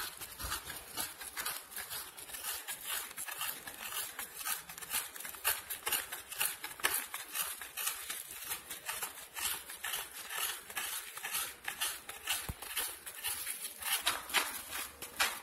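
A halved coconut being scraped against the serrated iron blade of a floor-standing coconut scraper, grating out the white flesh: a long run of quick, rasping strokes in a steady rhythm.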